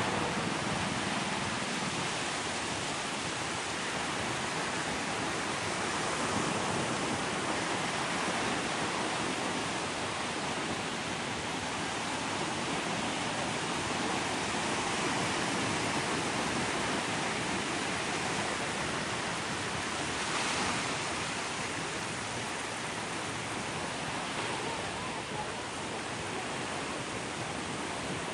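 Sea surf washing continuously onto a beach, a steady rush of breaking waves that swells and eases, with a brief louder wash about twenty seconds in.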